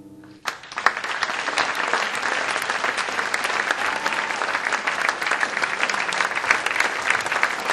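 Audience applauding: dense, steady clapping that starts suddenly about half a second in, just as the last sustained notes of the music die away.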